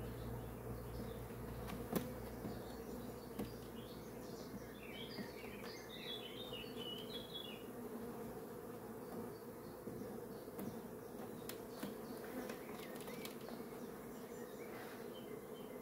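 Honeybees buzzing in a steady hum over the open hive's frames, with a few sharp clicks scattered through.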